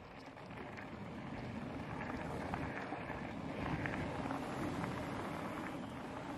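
Wind buffeting the microphone while on the move: a steady rumbling rush that builds over the first couple of seconds, with scattered faint clicks.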